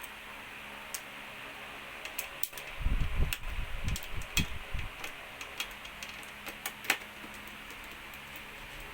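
Scattered small clicks and ticks of screws and a screwdriver being handled while a TV is taken apart, with a cluster of dull knocks and bumps from about three to five seconds in. A steady hiss runs underneath.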